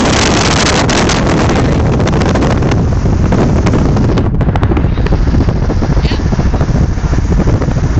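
Loud wind buffeting the microphone, a steady rumbling rush with crackling gusts throughout.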